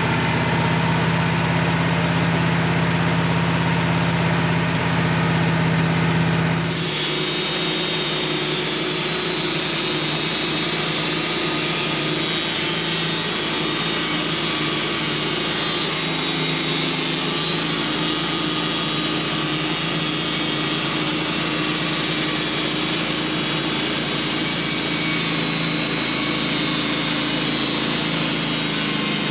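Band sawmill running and sawing through a spruce log with a carbide band blade: a steady machine noise. About seven seconds in the sound changes, a strong low hum dropping away and a higher hiss taking over.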